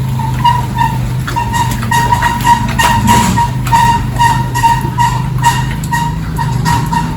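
A machine hums steadily while a short, high electronic beep repeats about three times a second.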